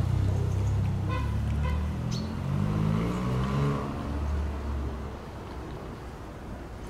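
A motor vehicle running close by: a low engine rumble that rises in pitch as it accelerates, then fades toward the end.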